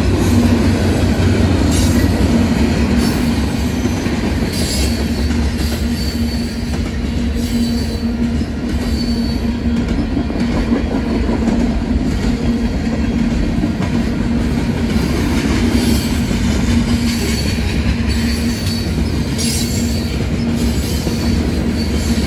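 Union Pacific freight cars rolling past close by, a steady heavy rumble with the clatter of wheels over the rails and short high-pitched wheel squeals now and then.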